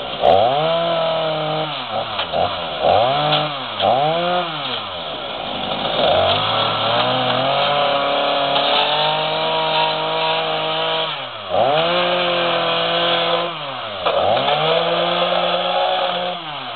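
Two-stroke petrol chainsaw being revved in the air. The throttle is blipped several times in quick succession, then held at high revs for a few seconds, then let back toward idle and opened up again twice more.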